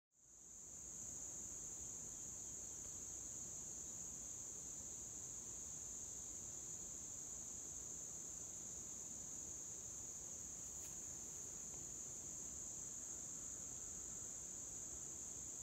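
Steady, unbroken high-pitched insect chorus in summer fields and woods.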